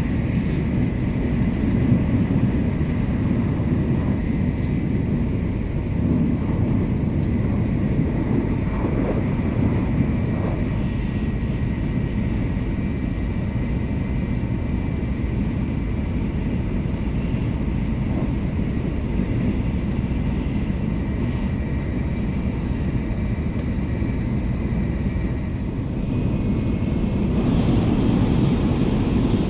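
Running noise of a Tokaido Shinkansen train at speed, heard inside the passenger cabin: a steady low rumble with a faint thin whine above it. About three seconds before the end, the whine drops away and the rumble grows a little.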